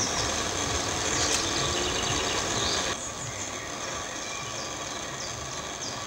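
A steady mechanical rumble, like a vehicle engine running, under repeated short high bird chirps. The whole sound drops a little in level about three seconds in.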